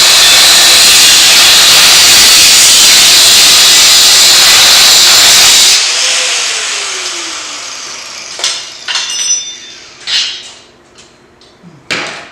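An angle grinder cutting a metal seat bracket, with a loud, steady grinding hiss. About six seconds in it stops and the disc spins down with a falling whine. A few light metal clinks follow.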